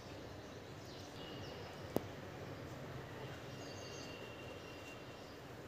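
Faint background ambience with a few thin, high bird chirps, and a single sharp click about two seconds in.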